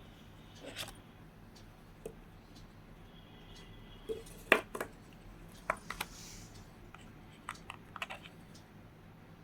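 Scattered clicks, taps and light scratches from a smartwatch box and its packaging being handled and opened, with one sharp click about four and a half seconds in.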